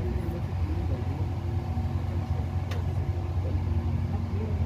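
Steady low mechanical rumble, like a running engine or machinery, with faint voices in the background.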